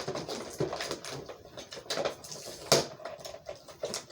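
Toy packaging being handled and opened by hand: irregular crinkles and clicks, with one sharp snap a little under three seconds in.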